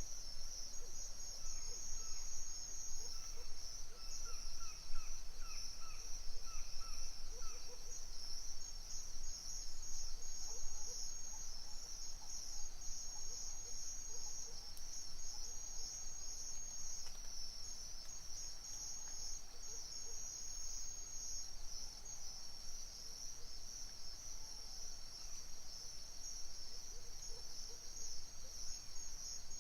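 Night chorus of crickets: dense, steady, high-pitched trilling. Over it, a short run of quick, lower chirps sounds in the first several seconds.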